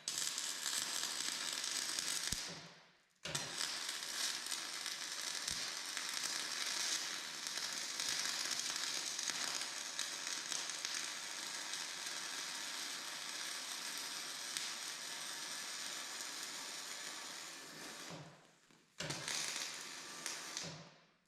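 Electric welding arc running as full-penetration beads are laid into a ground-out crack in a steel feed roller arm. The arc stops about two seconds in and strikes again within a second, runs steadily for about fifteen seconds, then breaks off briefly and restarts near the end.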